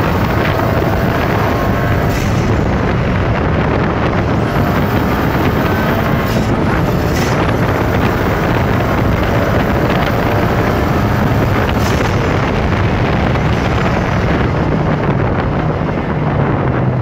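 Tuned KTM X-Bow at speed, with heavy wind rushing over the open cockpit and onto the microphone, and its turbocharged 2.0-litre TFSI four-cylinder running under the wind. The engine note drops near the end.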